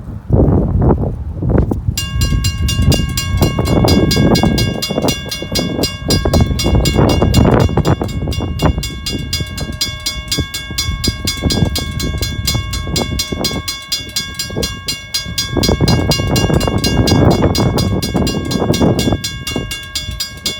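A railroad grade-crossing bell starts ringing about two seconds in, a rapid, steady run of high dings that warns of the approaching train. Strong wind buffets the microphone throughout.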